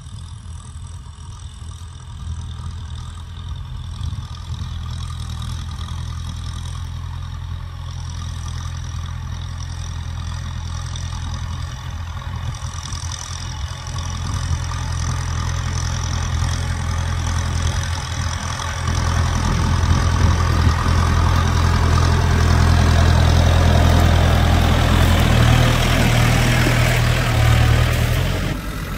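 Kubota M6040 tractor's diesel engine running steadily under load while pulling a disc plow through dry, stony soil. It grows louder as the tractor comes closer, is loudest over the last third, and drops off suddenly near the end.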